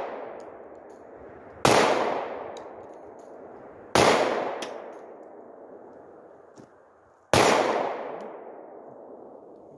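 Three slow, deliberately aimed shots from a Glock pistol, about two and three and a half seconds apart, each followed by a long echoing decay.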